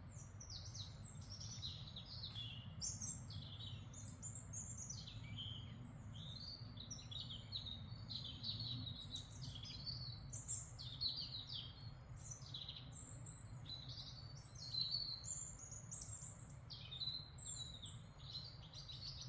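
Songbirds chirping continuously in a forest, a dense stream of quick, high, falling notes, over a low steady rumble.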